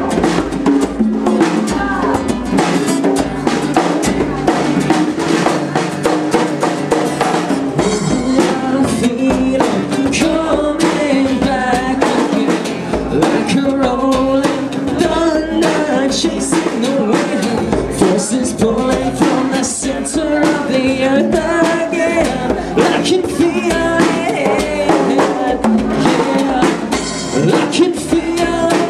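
Live acoustic rock performance: an amplified acoustic-electric guitar strummed steadily with a percussive beat under a man's singing voice.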